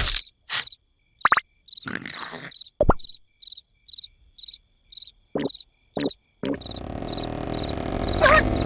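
Cartoon soundtrack of a cricket chirping in short regular pulses, about two a second, with a few brief squeaky sound effects. About two-thirds of the way through, a steady rough noise starts and grows slightly louder.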